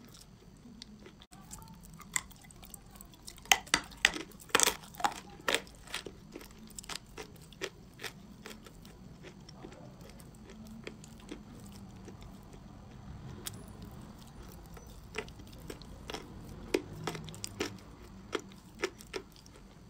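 A person chewing chalk coated in clay paste close to the microphone: crisp crunches and clicks, thickest a few seconds in and again near the end, with a sparser stretch in between.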